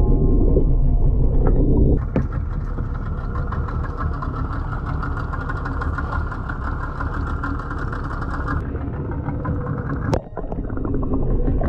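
Yamaha outboard motor idling, a steady low mechanical rumble that changes abruptly about two seconds in and again near the end.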